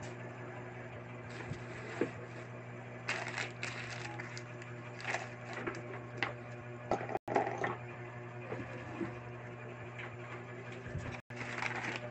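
Plastic wrapping and bubble wrap crinkling and rustling in short, irregular bursts while blender parts are handled and unpacked, over a steady low hum.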